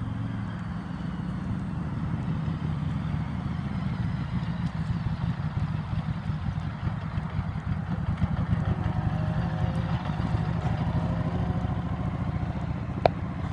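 Harley-Davidson Street 500 V-twin motorcycle engine running at low speed as the bike rides past and loops around, a steady low rumble that grows a little louder in the middle as it comes close. A sharp click near the end.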